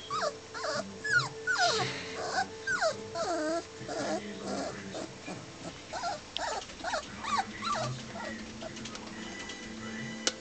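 Puppies whining: many short, high cries that fall in pitch, coming about two or three a second and sometimes overlapping.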